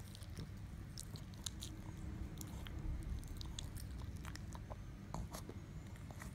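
A Pekingese dog chewing a biscuit: scattered small crunches and wet mouth clicks as it chews and licks its lips.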